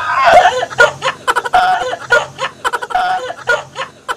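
Two young men laughing together in repeated short bursts of giggling.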